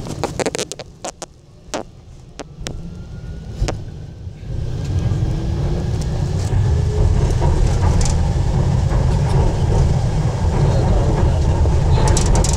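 MRT train pulling out of a station: a few sharp clicks in the first seconds, then about four seconds in the rumble of the car rises and holds loud and steady as the train gathers speed. A faint rising motor whine runs under it.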